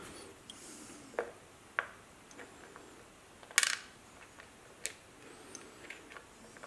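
A few light clicks and clinks of small metal screws being handled and set in place, with a louder cluster of clinks about three and a half seconds in.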